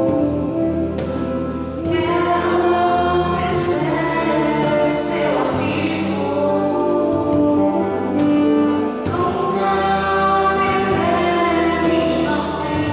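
A church band and singers performing a hymn: several voices singing together over guitar and bass.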